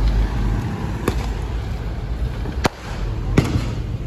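Fireworks going off: three sharp, irregularly spaced bangs, the loudest about two and a half seconds in, over a steady low rumble.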